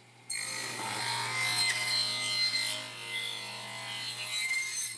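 Table saw cutting a narrow strip of wood fed along the rip fence: a steady sawing sound over the motor's hum. It starts abruptly about a third of a second in and fades out near the end.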